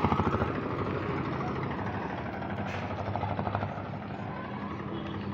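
Auto-rickshaw engine puttering close by, a fast even beat that fades about half a second in as it pulls away, over a steady low traffic hum; a weaker puttering passes about three seconds in.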